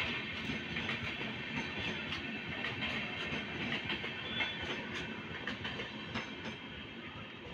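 Passenger train coaches rolling past, wheels clattering over the rail joints with a steady rumble. The noise fades from about six seconds in as the last coach passes and draws away.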